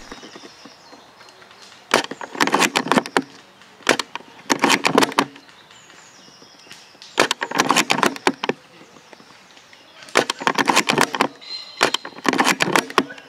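Airsoft electric rifles firing on full auto: five short bursts of rapid sharp cracks, each about a second long.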